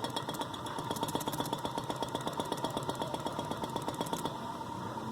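Hampton Bay Huntington III ceiling fan motor, running without blades at its second-highest speed: a steady hum with a rapid, even ticking over it.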